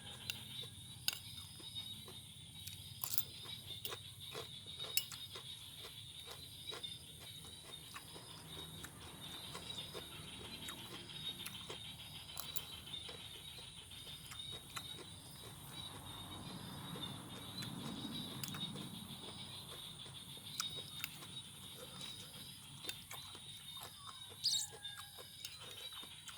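Crunchy chewing and biting of raw vegetable salad, with sharp clicks and crunches scattered through, over a steady, rapid, high-pitched ratcheting trill.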